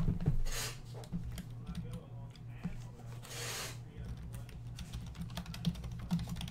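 Typing on a computer keyboard: a fast, uneven run of key clicks over a steady low hum, after a thump at the very start.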